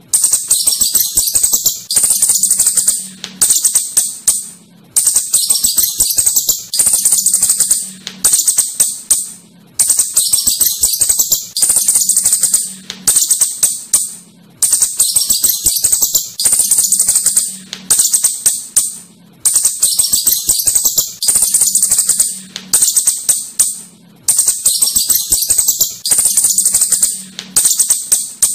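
Asian house shrew (clurut) giving rapid, high-pitched chittering, a fast rattle of clicks in bursts of a few seconds. The same stretch of calls repeats about every five seconds.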